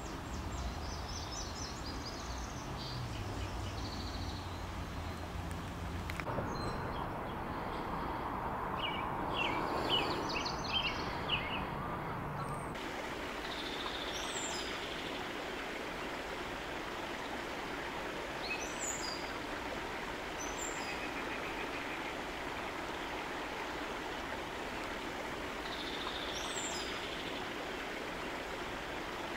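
Steady rushing of a river, with scattered short bird chirps. A low rumble runs under it for the first six seconds.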